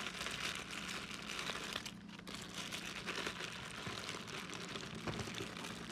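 Clear plastic zip bags crinkling and rustling as hands rummage through them in a cardboard box, with a short lull about two seconds in.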